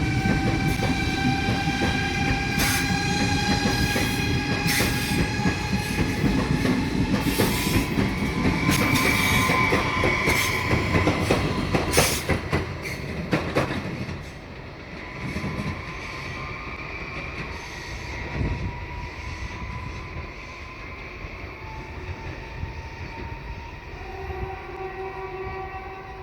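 A train passing on the rails. Its wheels clack rapidly over the rail joints and give steady high squealing tones. About halfway through the clatter stops and the sound falls away to a quieter rumble with faint tones.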